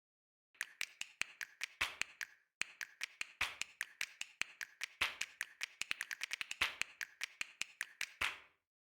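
A quick series of sharp snaps or taps, several a second in an uneven rhythm, with a short pause about two and a half seconds in; they stop shortly before the end.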